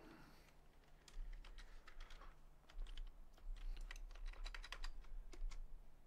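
Computer keyboard keys tapped irregularly, a scattering of faint separate clicks.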